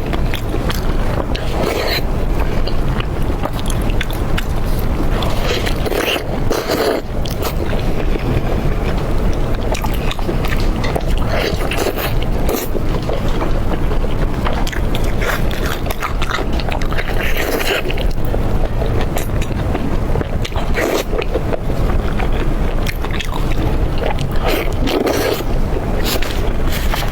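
Close-miked eating: chewing and biting with many short, wet clicks and crunches, over a steady low rumble.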